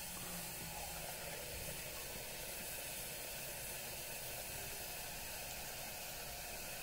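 Steady hiss of liquid nitrogen boiling off in copper LN2 pots after a pour.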